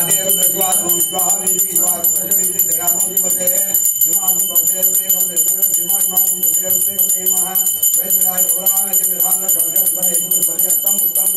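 A puja hand bell rung rapidly and without a break, its high ringing tone steady throughout, while voices sing a chant over it.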